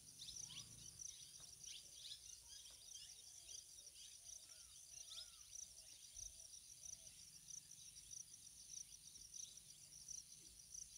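Near silence: faint outdoor ambience with a steady high insect buzz and a few faint bird chirps.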